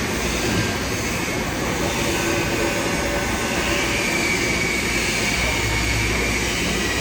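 Argon TIG welding arc hissing steadily during a root pass on a pipe-to-flange joint.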